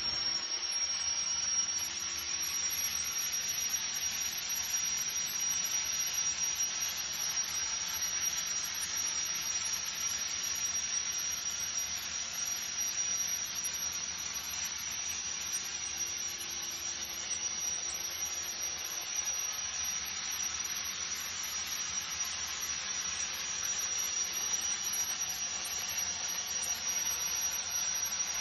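Plasma torch on a Zinser pipe-cutting machine cutting through a 24-inch diameter tube: a steady hiss with a constant high-pitched whine over it.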